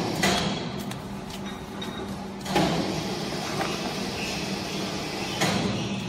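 Cardboard boxes being pushed and packed by hand into the chamber of a small vertical baler, three bursts of scraping and rustling about a second in, two and a half seconds in and near the end, over a steady low hum.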